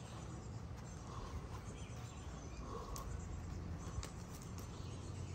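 Faint outdoor ambience with a steady low rumble and a few soft footsteps and clicks as someone walks across grass toward a cabin.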